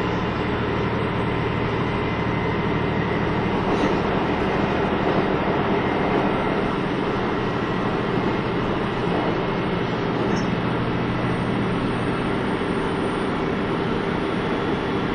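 Steady running sound of a KiHa 25 diesel railcar heard from on board: the diesel engine's steady drone mixed with wheel-on-rail noise.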